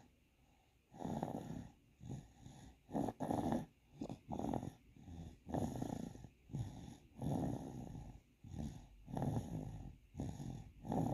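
Soft snoring in sleep: quick, rhythmic snoring breaths, about one a second, after a brief pause at the start.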